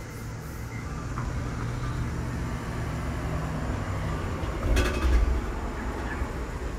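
Steady low background rumble, with a brief louder rush of noise about five seconds in.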